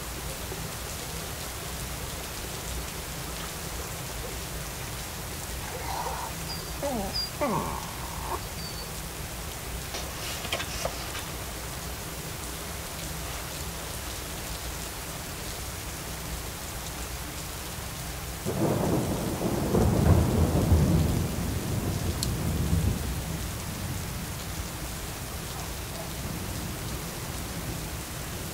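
Steady rain falling, with a roll of thunder about two-thirds of the way through that rumbles for several seconds.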